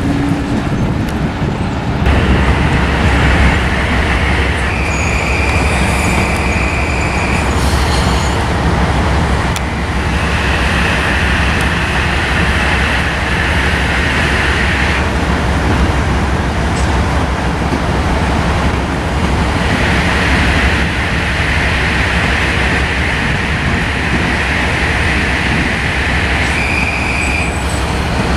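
Metro-North M8 electric multiple-unit commuter train rolling past at low speed: a steady low rumble that gets louder about two seconds in, with high whining tones that come and go over it.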